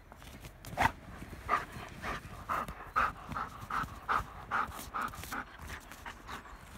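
Dog panting hard in a quick, even rhythm, about two and a half breaths a second for several seconds, as it roots with its nose in snow. A single sharp click comes about a second in.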